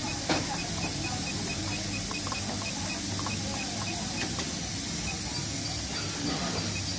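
A SunStar sewing machine's control panel ticking faintly about four times a second while a key is held down, as the setting value steps down. There is a sharp click about a third of a second in and a few lighter key clicks, over a steady hiss.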